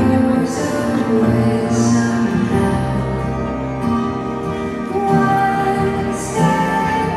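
Music: a slow song with long held instrumental notes and a singing voice.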